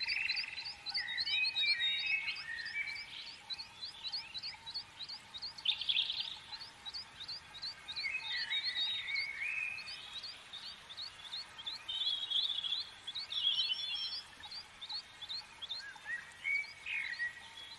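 Birdsong ambience: one bird repeats a short, high chirp several times a second without a break, while other birds warble in short phrases over it.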